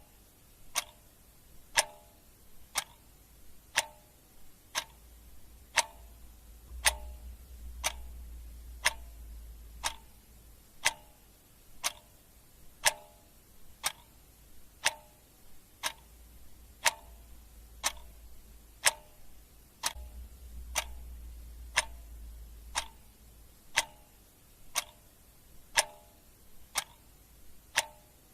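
Clock ticking steadily, about two ticks a second, alternating a stronger tick with a softer tock.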